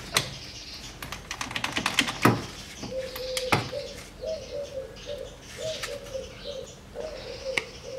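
Ratchet with a 10 mm hex bit clicking in quick runs on the transfer case fill plug, with two sharper metal knocks. From about three seconds in, a pigeon coos repeatedly.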